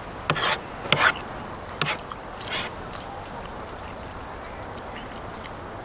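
Backyard poultry calling: four short calls in the first two and a half seconds.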